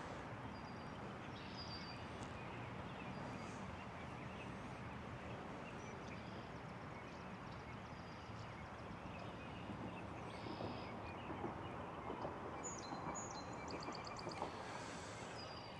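Steady, faint outdoor background hiss with a few short, high bird chirps scattered through it, and a quick run of repeated chirps a little before the end.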